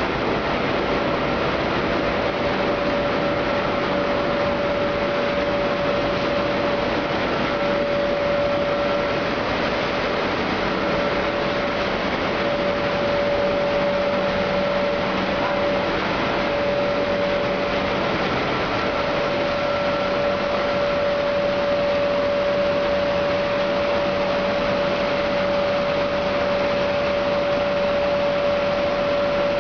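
Sawdust and straw drying line running: electric motors, centrifugal blowers and a screw conveyor giving a steady, even machine noise with a constant mid-pitched whine over a lower hum.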